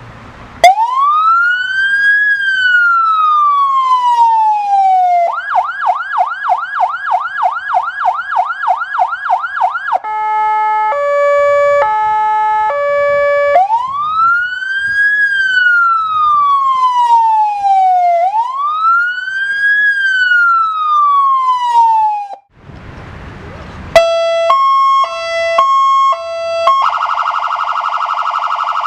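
Fire engine's electronic siren cycled through its tones. It plays a slow rising-and-falling wail, then a fast yelp of about three sweeps a second, then a two-tone hi-lo, then the wail twice more. After a brief pause it plays another two-tone pattern and ends on a rapid warble.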